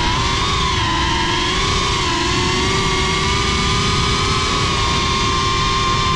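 FPV quadcopter's motors and propellers whining at a nearly steady pitch, wavering slightly with throttle in the first couple of seconds and then holding level.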